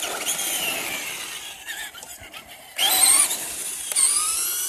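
Traxxas Slash RC truck's electric motor and drivetrain whining at speed on asphalt; the high whine falls in pitch as the truck goes by, then rises sharply again in two throttle bursts, about three and four seconds in.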